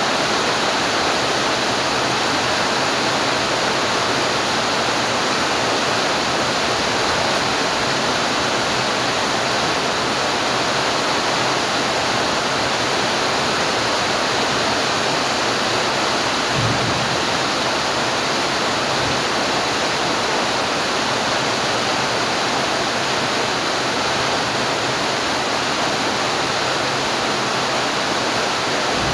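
Steady rain falling in a dense, even hiss, with one brief low thump a little past halfway.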